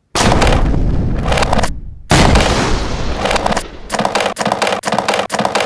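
Two loud, sudden explosion-like booms, one at the start and one about two seconds in, each dying away, then a rhythmic music track with a steady beat begins about three seconds in.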